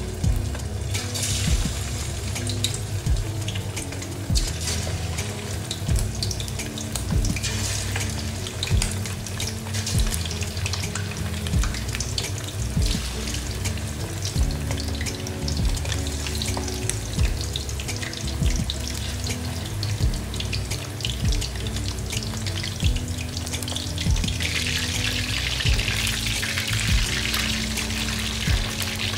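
Raw chicken pieces deep-frying in a wok of oil, a dense steady sizzle and crackle that grows louder about four-fifths of the way through. Background music plays underneath.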